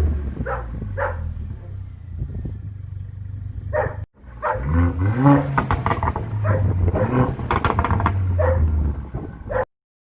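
Mercedes-AMG CLA 45's 2.0-litre turbocharged four-cylinder being revved through an AMG performance exhaust, with sharp crackles and pops as the revs drop. About four seconds in the sound briefly cuts out, then the revs climb again and fall back with more pops.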